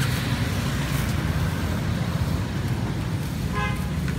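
Street traffic: a steady low rumble of motor vehicles and engines running, with a short pitched sound rising above it near the end.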